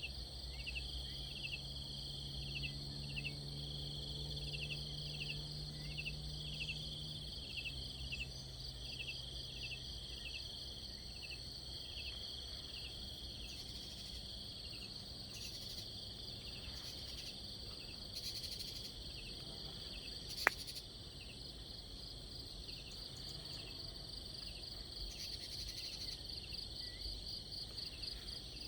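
Insects calling in a steady high trill, with short chirps repeating a little faster than once a second. A low hum runs under the first several seconds, and a single sharp click sounds about two-thirds of the way through.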